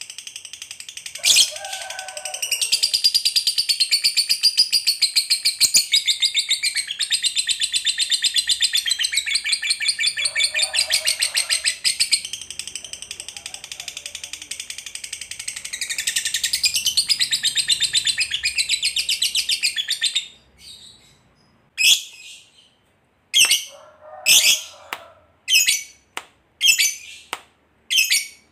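A Fischer's lovebird gives a long, very rapid, high chattering trill, the prized "ngekek panjang" long chatter, lasting about twenty seconds. It then breaks off into a string of separate short, shrill calls about a second apart.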